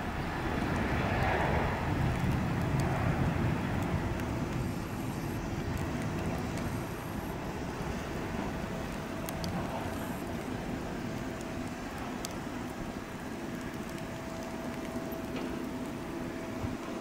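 Aircraft tug towing a Boeing 777-300ER: a steady vehicle rumble with a faint steady whine, louder in the first few seconds and then easing.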